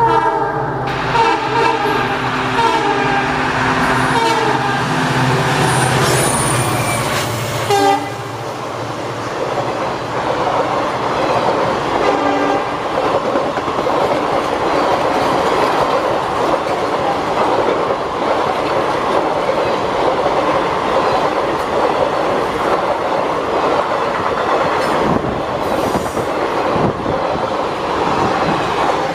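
WDP-4 diesel locomotive sounding its air horn in several blasts over its running engine as it comes up and passes, for about the first eight seconds. After that the express coaches roll past at speed: a steady loud rush of wheels on rail with clickety-clack over the rail joints.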